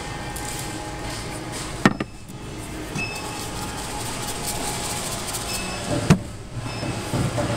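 Steady shop background noise with two sharp knocks, about two seconds in and again about six seconds in, as glass decor pieces are handled on a wooden table.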